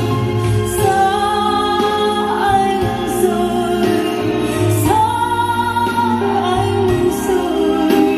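Music: a woman singing long held notes that slide between pitches, over a steady instrumental accompaniment.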